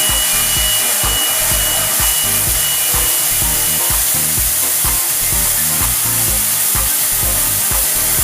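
Automatic train wash plant running on its test cycle: water sprays hiss steadily from the wash towers over the running machinery. A thin steady high whine stops about four seconds in.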